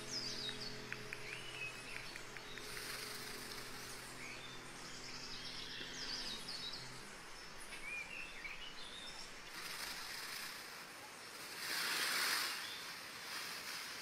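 Faint outdoor ambience with small birds chirping now and then. A steady low hum stops about halfway, and a short burst of rustling hiss comes near the end.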